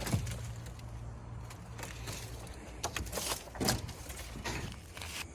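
A few light cracks and knocks over a low steady hum; the hum stops about two and a half seconds in.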